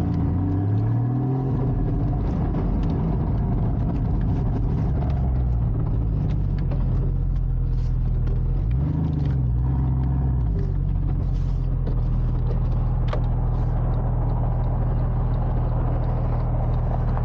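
Porsche 981's flat-six engine pulling away and accelerating through the gears. The pitch climbs about a second in, rises and dips again near the middle with a gear change, then settles into a steady drone.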